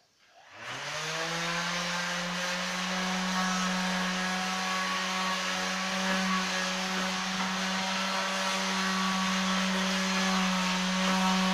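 Electric palm sander switched on about half a second in, its motor spinning up to speed, then running steadily with a strong hum while it is pressed against the wall.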